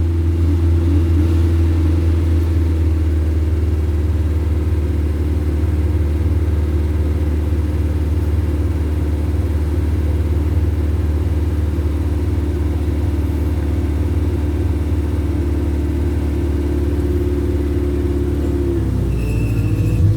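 Off-road 4x4's engine running steadily at constant speed, a deep even drone. Near the end its pitch shifts up and down as the throttle changes.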